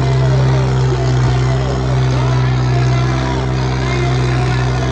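Tractor diesel engine running at a steady pitch, with faint voices over it.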